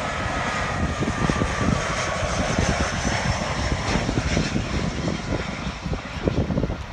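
Airbus A320 jet engines running as the airliner comes in to land close by. A whine in the engine noise falls in pitch over the first couple of seconds as it passes.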